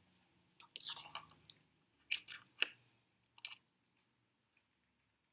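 Faint small plastic clicks and taps as a Lego minifigure is picked up off a wooden desk, a cluster about a second in and a few more between two and three and a half seconds in.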